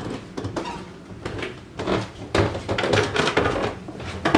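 Footsteps thudding down stairs and along a floor: a run of irregular knocks, with a louder thump near the end.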